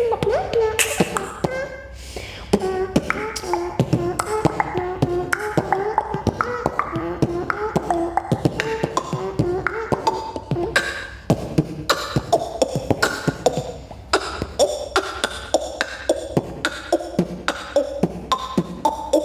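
A boy beatboxing: rapid mouth-made drum sounds, sharp clicks and hits in a steady rhythm, with a tune carried by the voice over the beat for about the first half, then sharper, evenly spaced hits.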